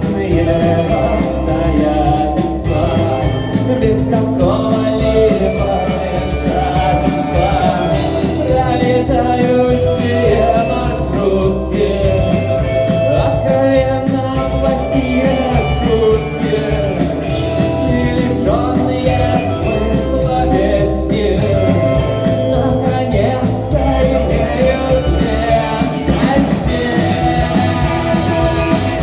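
Rock song with a singing voice over a full band, playing loud and steady throughout.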